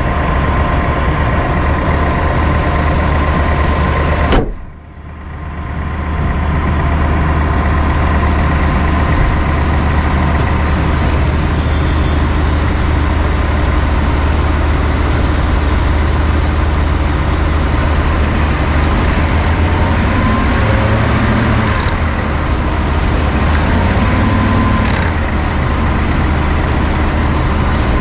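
A 2018 Ford F-150's 5.0 L V8, heard from inside the engine bay, running with a steady low hum while the truck is driven. The sound drops sharply about four seconds in and comes back within a second or two. A few sharp clicks come in the second half: the clicking or rattling on letting off the throttle that Ford's TSB 18-2354 update has not cured.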